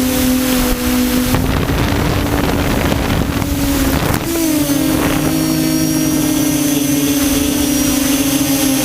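QAV400 quadcopter's electric motors and propellers humming steadily. A stretch of wind noise buffets the microphone between about 1.5 and 4 seconds in, and the pitch lifts briefly with a throttle change just after.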